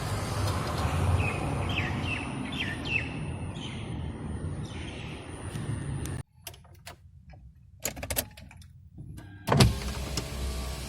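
Fiat Punto engine idling with a steady low rumble and a few short chirps. About six seconds in the sound drops away abruptly, and a few clicks and a sharp knock follow.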